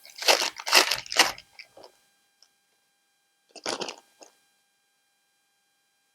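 Crinkling plastic packet of a new rubber drive belt being handled: a quick run of crinkles in the first second and a half, and another short one near four seconds.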